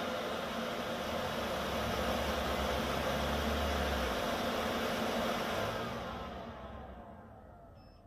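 Degritter record-cleaning machine's drying fan blowing steadily, then spinning down with falling whine lines about six seconds in as the drying cycle finishes. A repeating electronic beep starts right at the end.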